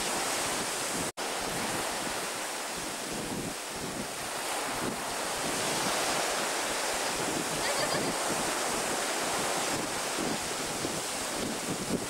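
Ocean surf breaking on lava rocks and sea-pool walls, with sea water spilling over a pool wall, as a steady rushing wash; wind buffets the microphone. The sound cuts out for an instant about a second in.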